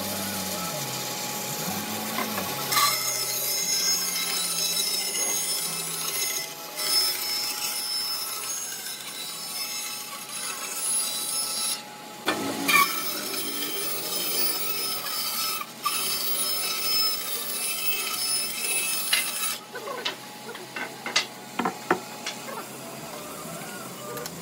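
An old cast-iron band saw running and ripping wooden boards: a steady whine with a hiss from the blade in the wood. The sound shifts abruptly a few times. Near the end come several short knocks of boards being handled.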